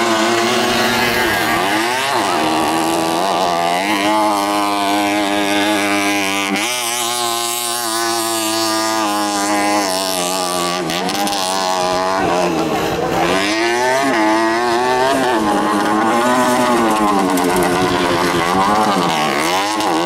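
50 cc two-stroke racing moped engine being revved hard, its pitch climbing under throttle and dropping sharply again and again through gear changes and corners on a dirt track.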